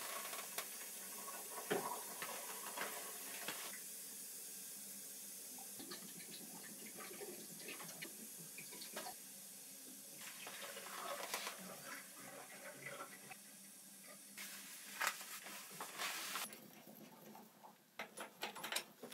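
Dirty hydronic boiler water running from a drain hose into a plastic bucket, draining the system after a week of chemical cleaning: a faint, steady splashing that stops a few seconds before the end, followed by a few light knocks.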